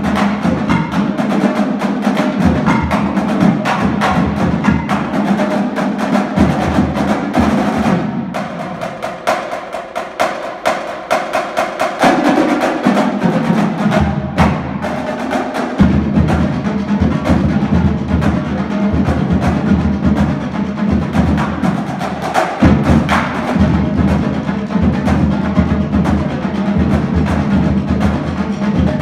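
Drumline playing: snare drums, tenor drums and bass drums in fast, dense rhythmic patterns. The low bass drums drop out and the playing gets lighter about eight seconds in, then the full line comes back in around the middle.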